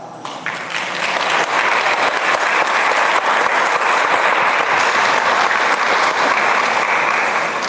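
A crowd applauding, the clapping building up over the first second and then holding steady.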